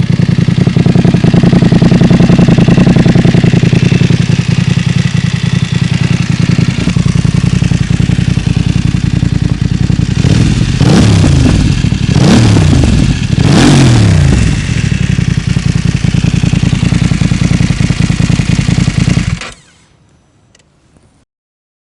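BMW F900 XR's parallel-twin engine running through an Akrapovic slip-on exhaust: steady idle, three quick throttle blips about halfway through, then back to idle until the sound cuts off abruptly near the end.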